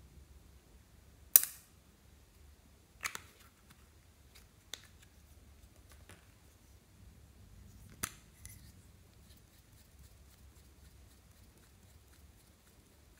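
Sharp plastic clicks and snaps from makeup pens, tubes and caps being handled: four main clicks over about eight seconds, the first the loudest, with fainter ticks between.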